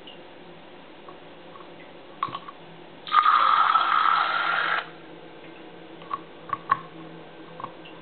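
A plastic syringe squirting water into a small glass test vial: a loud hissing stream lasting about a second and a half, the measured sample for a carbonate-hardness (kH) test. Small plastic clicks of the syringe and bottle cap come before and after it.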